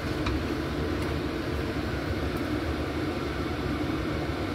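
A steady mechanical hum and hiss with an even level throughout, and a faint tap shortly after the start.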